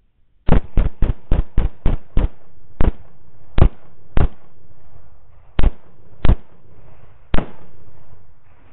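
Rifle fire, about thirteen shots. The first seven come quickly, roughly three a second; the remaining six are spaced more slowly, each up to about a second and a half apart. Each shot is a sharp crack with a brief echoing tail.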